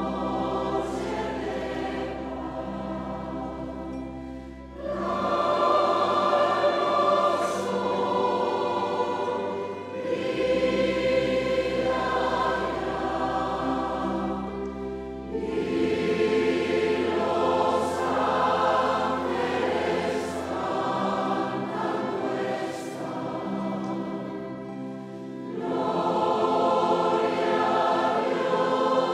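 Large mixed choir of men's and women's voices singing a slow piece in long held chords, phrase after phrase, over low sustained notes.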